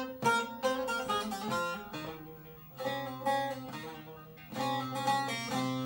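Bağlama played with a plectrum: a strummed folk-style melody over ringing drone strings, with a strong strum near the end that is left to ring.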